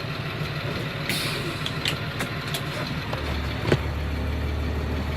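Caterpillar C7 inline-six diesel idling steadily, heard from inside the bus cab, with a few short clicks and a brief air hiss about a second in. A deeper low drone comes in a little past halfway.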